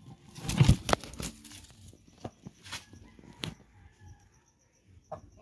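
Black Aseel hen flapping and scuffling as it is set down, a loud burst about half a second in, then a few sharp rustles and taps, and a short cluck near the end.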